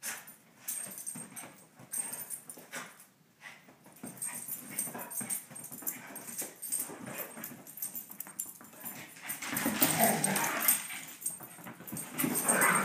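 A large dog and a small dog playing together, making irregular dog sounds in uneven bursts, loudest about ten seconds in and again near the end.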